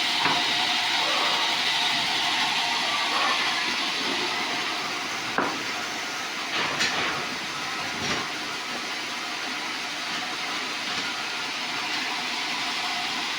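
Sawmill bandsaw running through a sonokeling log: a steady hiss, with three sharp knocks in the middle.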